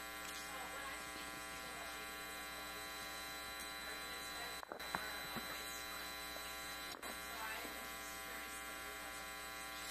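Steady electrical mains hum with a buzzy stack of overtones, unchanging throughout. A faint, distant voice comes and goes underneath it a few times.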